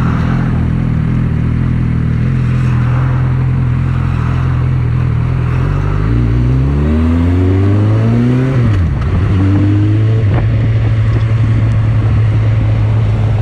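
Suzuki GSX650F inline-four engine on the move: a steady note at first, then revving up about halfway through, dropping sharply at a gear change and climbing again before settling to a steady higher note. Wind noise on the microphone throughout.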